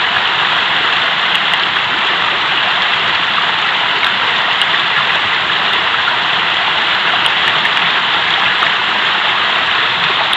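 Mountain river rushing over rocks, a loud, steady roar of water.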